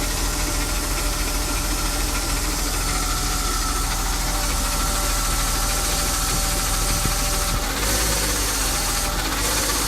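BMW M52B20 2.0-litre inline-six running on a cold engine with a strange rattling noise that changes with engine speed. The engine speed is raised and varied from about eight seconds in.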